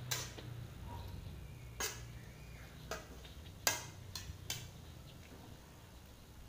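Metal spatula knocking and scraping against a metal wok while stirring a thick stir-fry, about half a dozen sharp clicks spread unevenly through the first few seconds.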